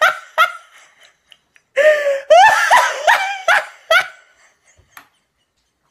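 A man laughing hard and high-pitched, in short whooping bursts: a brief burst at the start, then a longer fit from about two to four seconds in, after which the laughter stops.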